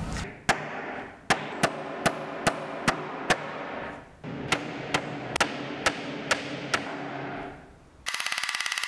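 Hammer driving nails into plywood: a steady run of light strikes, about two or three a second, in two spells. A brief buzzing rattle comes near the end.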